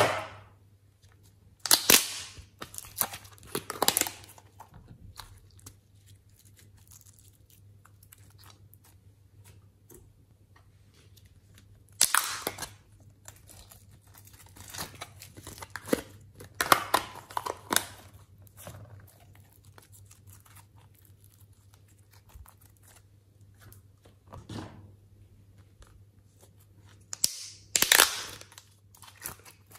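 Thin clear plastic slime containers crinkling and crackling as they are squeezed and slime and clay are peeled out of them. The sound comes in a few short bursts with quiet stretches between.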